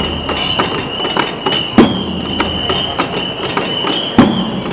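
Rhythmic street percussion: quick clicking beats with a heavy thump about every two and a half seconds, over a steady high-pitched tone.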